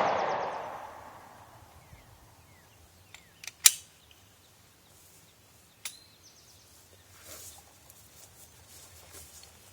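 The echo of a Glock 23 .40-calibre pistol shot dies away over about the first second. After that come a few separate sharp clicks and knocks: the loudest is about three and a half seconds in, and a smaller one near six seconds leaves a brief ring.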